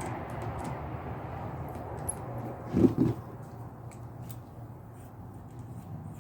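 Hand rivet nut tool and its small metal parts being handled, giving scattered light clicks and two dull knocks close together about three seconds in, over a steady low background hum.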